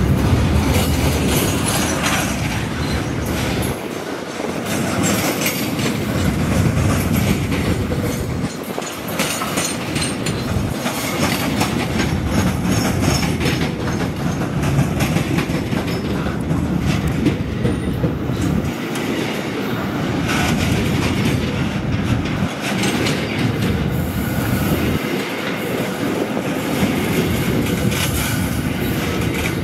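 Freight train of tarpaulin-covered wagons rolling past close by. The wheels clatter steadily over the rails, with some high wheel squeal.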